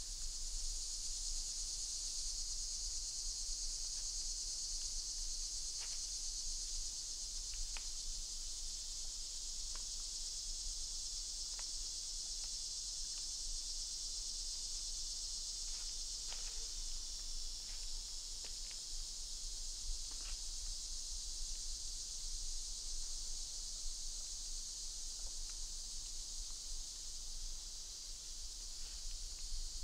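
Steady, high-pitched chorus of insects such as crickets, unbroken throughout, with a dozen faint clicks and ticks scattered through it.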